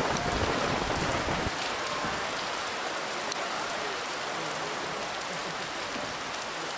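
Heavy rain falling steadily, a dense even hiss, with a low rumble under it during the first second and a half.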